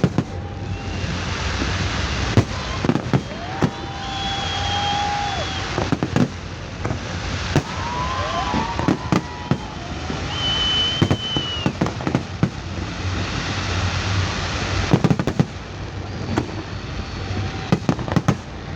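Fireworks display: a rapid, irregular run of sharp bangs over continuous crackling from the bursting shells.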